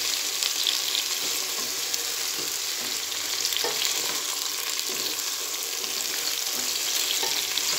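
Eggplant slices sizzling in hot oil in a nonstick pan, fried through, while a wooden spatula stirs and lifts them with small scrapes and knocks against the pan. The sizzle is a steady hiss.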